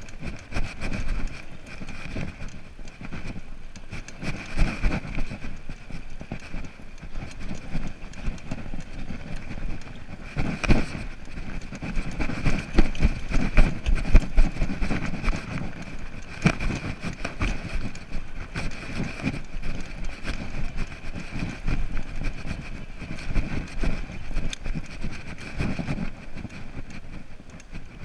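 Electric bike ridden over a rough dirt trail and grass: a steady high whine from its rear hub motor runs over a constant rattle and knocking of the bike over bumps, with louder jolts now and then and wind on the microphone.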